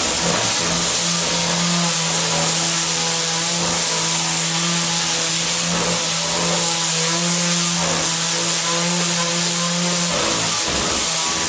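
Electric sander running steadily: a motor hum with a strong high hiss over it. The hum wavers and drops out briefly near the end.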